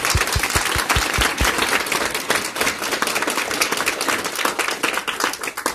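Audience applauding, a dense patter of many hands clapping that dies away at the very end.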